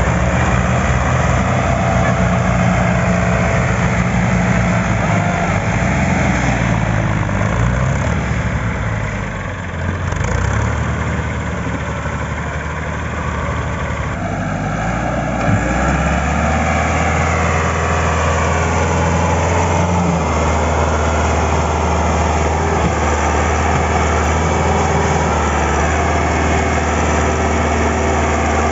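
Tractor's diesel engine running. Its pitch shifts and its loudness dips about ten seconds in, and it holds a steady note from about halfway through.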